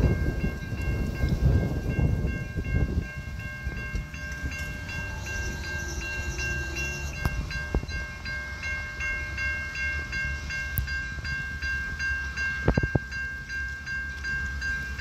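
Railroad level-crossing warning bell ringing in a fast, even repeating rhythm while the gates are down, over the low rumble of an approaching diesel freight train. Wind buffets the microphone for the first few seconds.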